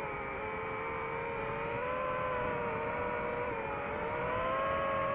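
DJI FPV drone's electric motors and propellers whining in flight, the pitch wavering up and down as the throttle changes, over a steady rush of air.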